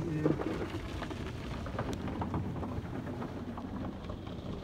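Spray from a touchless PDQ LaserWash 360 Plus car wash hitting the car's roof and windows during the wax-shine application, heard from inside the cabin as a steady rain-like rush with many small ticks over a low hum.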